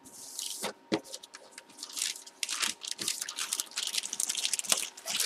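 Clear plastic bag crinkling and rustling as hands handle a bagged jersey, dense crackling throughout, with two sharp knocks about a second in.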